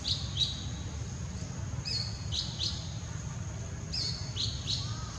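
A small bird calling a short phrase of high chirps, a flat note followed by two quick downward notes, repeated about every two seconds, over a steady low background rumble.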